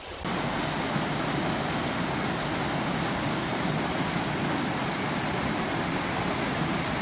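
Small waterfall on a rocky stream, water rushing steadily. It starts abruptly a moment in.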